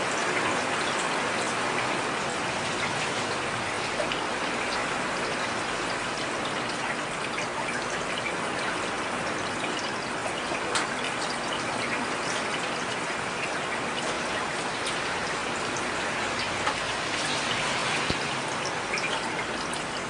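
Heavy rain falling steadily, an even hiss with scattered sharp ticks of drops striking close by.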